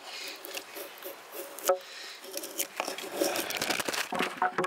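Fixed-blade knife scraping and shaving the face of a freshly split wooden board smooth, in a few separate strokes. In the second half a jumble of knocks and rustling follows as the camera is knocked over and falls.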